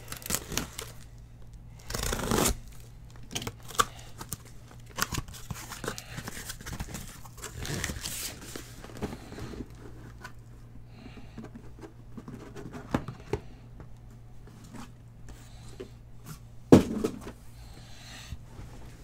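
Cardboard case of trading-card boxes being opened and unpacked: cardboard and tape tearing, with rustling and scraping as the boxes are handled. A single loud thump near the end, as of a box set down on the table.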